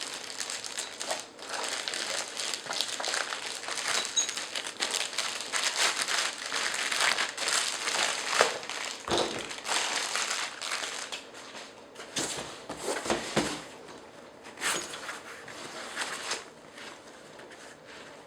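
Phone-box packaging crinkling and rustling as it is handled, with a few soft thumps, growing quieter near the end.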